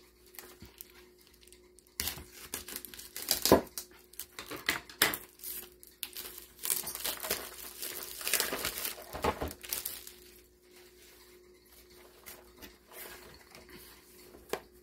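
Plastic shrink-wrap being torn and peeled off a cardboard box, crinkling and tearing in irregular spurts with a few sharp snaps for about eight seconds, then quieter rustling as the box is handled.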